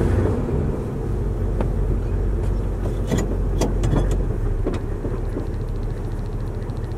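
1971 Dodge Coronet's engine running steadily with a low hum, heard from inside the car's cabin, with a few light clicks.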